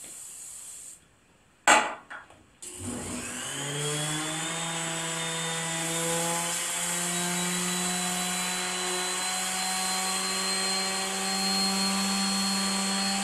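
A short hiss and a knock, then a random orbital sander starts, winding up over about a second, and runs steadily as it wet-sands the 6061 aluminum bed plate with 400-grit paper and WD-40 to polish it.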